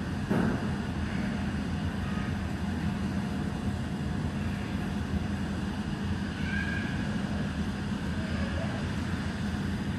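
Steady low hum and hiss of aquarium-hall background noise, the kind made by tank pumps and air handling. There is a brief bump just after the start.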